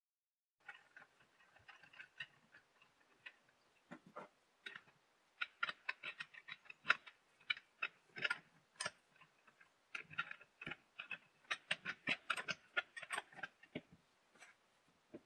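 Small metallic clicks and ticks of a wrench turning nuts onto threaded rods with washers, in quick runs with short pauses.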